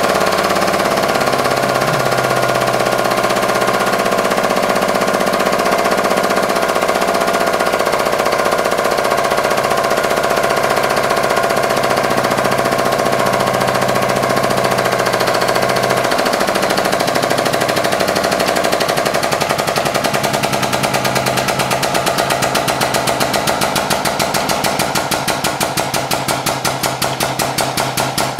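Hydraulic press running steadily as its ram bears down on sweet gum seed pods and flattens them. From about twenty seconds in, the running sound takes on a fast, even pulsing that grows more distinct toward the end.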